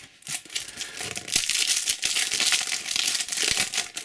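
Foil wrapper of a Topps Slam Attax trading card booster pack crinkling as it is torn open and the cards are pulled out. The crackling thickens about a second in and stops just before the end.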